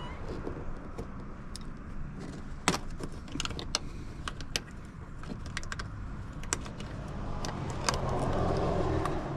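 Irregular sharp clicks and taps of a hand tool working at plastic interior trim panels of a car, prying at a pillar cover to reach a screw, over a steady low rumble.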